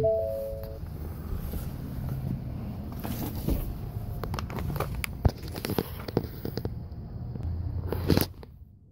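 Handheld phone rubbing and rustling, with scattered clicks and knocks as someone moves in and out of a pickup truck's cab. A short three-note tone sounds at the very start, and a louder knock comes about eight seconds in.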